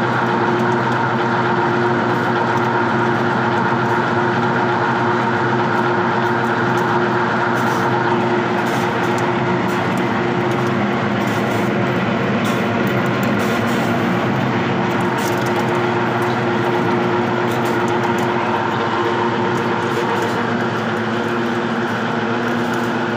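Belt-driven screw oil expeller running under load, pressing oil: a loud, steady machine hum with several constant tones that does not change.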